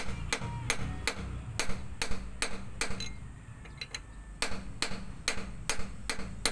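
Hammer striking a punch held against a truck's wheel hub: sharp metal taps, about two to three a second, with a short pause around the middle.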